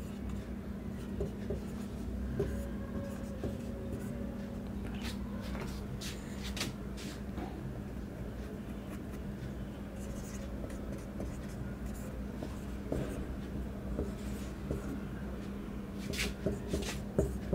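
Marker pen writing on a whiteboard: short, irregular scratching strokes as letters are drawn, over a steady low hum.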